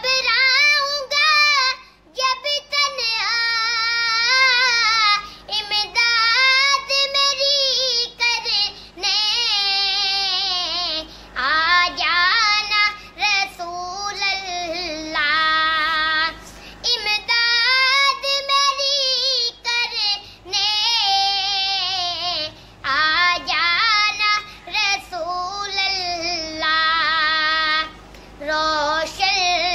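A child singing a slow melody with wavering long-held notes, broken by short breaths between phrases.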